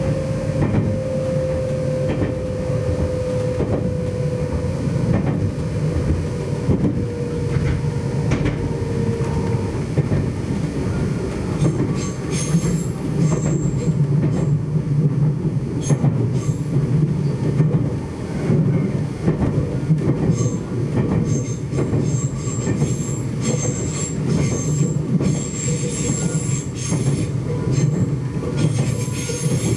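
Nagano Electric Railway's Yukemuri limited express electric train running, heard from on board: a steady rumble of wheels on rail with occasional clicks over the rail joints. A thin tone slowly falls in pitch over the first ten seconds, and from about twelve seconds in, intermittent high-pitched wheel squeal joins it.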